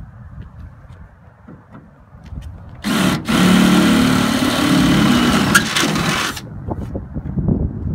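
A few faint steps, then about three seconds in a cordless drill starts boring into the aluminium gunwale of a jon boat, running steadily under load for about three and a half seconds before it stops.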